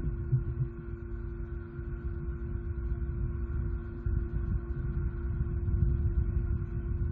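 Steady hum of several fixed tones over a low, flickering rumble, growing slightly louder about four seconds in.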